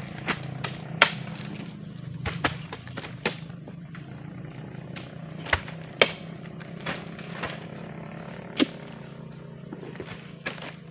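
Irregular sharp knocks and clicks, about eight spread across several seconds, over a steady low hum.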